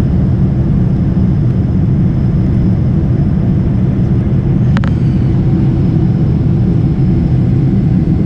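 Steady low roar inside the cabin of a Boeing 747 climbing out after takeoff: engine and airflow noise heard from a window seat. There is one brief click a little before five seconds in.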